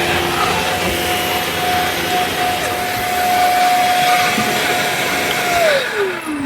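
Milwaukee M18 FUEL dual-battery 9-gallon wet/dry vac running with a steady whine over rushing air. Near the end it is switched off, and the whine falls in pitch as the motor spins down.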